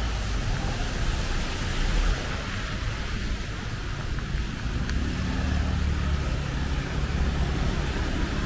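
Road traffic in the rain: a steady hiss and low rumble, with a vehicle engine's hum standing out from about five seconds in.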